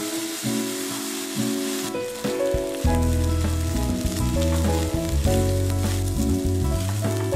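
Soaked glutinous rice and vegetables sizzling in a stainless steel frying pan as they are stirred with a wooden spatula. The sizzle is strongest in the first two seconds. Background music plays underneath, with a bass line coming in about three seconds in.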